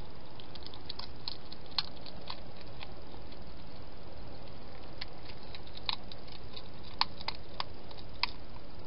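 A wild hedgehog eating from a dish: sharp, irregular crunching clicks in short bunches, over a steady background hiss.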